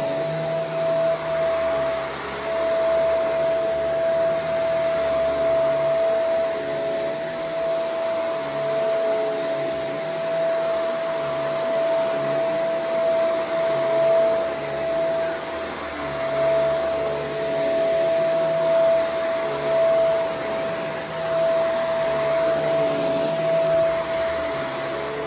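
Shark Vertex AZ2002 upright vacuum cleaner running on carpet: a steady whine over a rushing hiss, with a lower hum that comes and goes as the cleaner head is worked back and forth.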